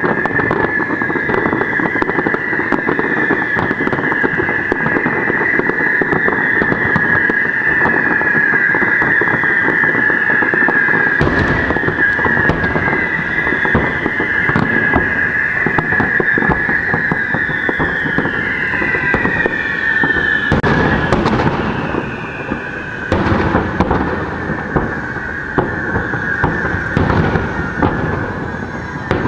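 Fireworks display: continuous crackling with many shrill whistling fireworks whose pitch falls. Sharper bangs of bursting shells come in the last third.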